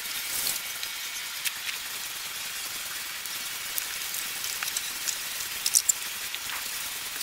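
A sponge scrubbing thick soap foam over a car's front bumper: a steady fizzing crackle of foam with scattered small clicks, and a few louder clicks close together about six seconds in.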